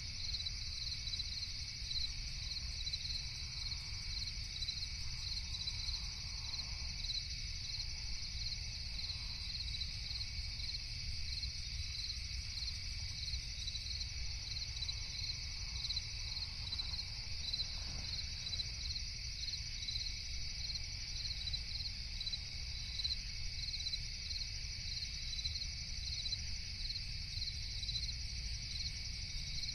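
Crickets chirping steadily at night, a high unbroken chorus with regular repeating pulses, over a low steady rumble.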